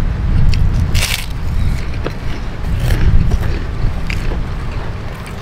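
Wind buffeting the microphone as a steady low rumble, with the sharp crunch of a kerupuk cracker being bitten about a second in and a few smaller eating crunches and clicks after it.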